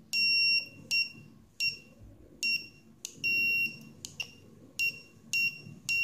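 A small electronic buzzer beeping each time a push-button is pressed, keying Morse code: about eight high, steady beeps, mostly short dots with two longer dashes of about half a second.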